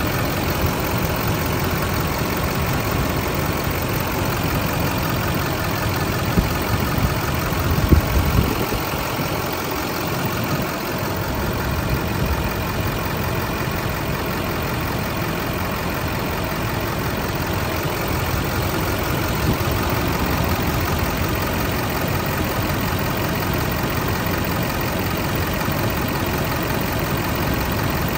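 6.6-litre Duramax turbo-diesel V8 of a Chevrolet 4500HD truck idling steadily, heard close up from the open engine bay. A few brief low thumps break in about six to eight seconds in.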